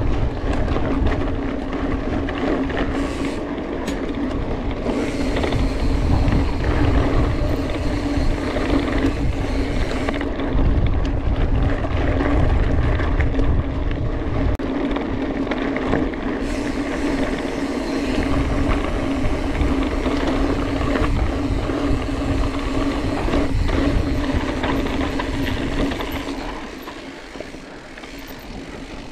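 Mountain bike riding on a trail: rushing wind and rolling rumble with a steady mechanical buzz from the bike's drivetrain or freewheel. The sound eases off near the end.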